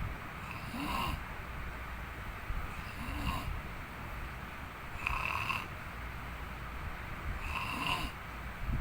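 Loud, odd-sounding snoring: four snores about two seconds apart, each with a high, squeaky edge over a low rumble.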